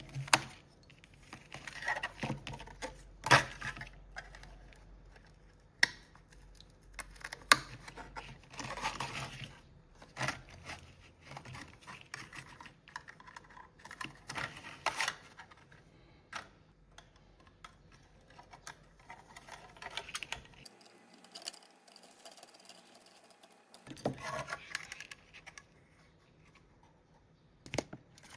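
Irregular clicks, taps and short scraping or rustling sounds of small parts and tools being handled at a workbench.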